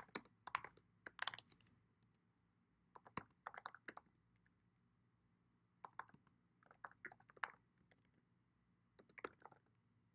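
Faint typing on a computer keyboard: quick runs of key clicks in short bursts, broken by pauses of a second or two.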